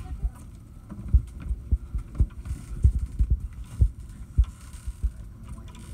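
Wind buffeting the microphone on an open boat deck: a low rumble broken by irregular low thumps, about one or two a second.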